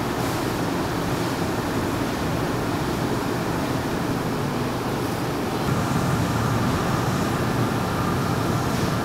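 Steady running noise of kitchen machinery. About six seconds in a motor hum with a faint whine joins and the sound grows a little louder, fitting an electric dough roller pressing out duck-pancake wrappers.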